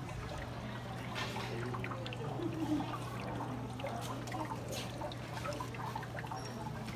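Artificial rain inside a car sculpture: water trickling and pattering in many small drips on the glass and interior, over a steady low hum.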